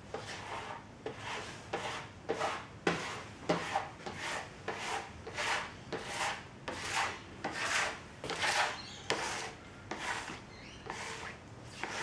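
Hand-held applicator pad rubbed back and forth over a poured pool of wet polyurethane on a wooden tabletop, spreading the last coat of finish: a quick, even run of swishing strokes, about two a second.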